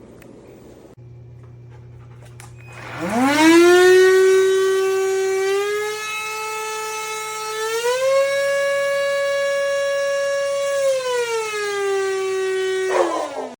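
NADALY cordless stick vacuum motor spinning up to a loud, high whine about three seconds in. Its pitch steps up twice, drops back down, then falls away as it switches off near the end.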